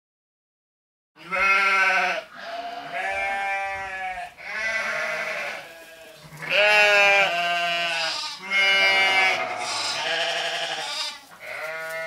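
Livestock bleating: a series of about seven long, wavering bleats, each lasting around a second, beginning about a second in.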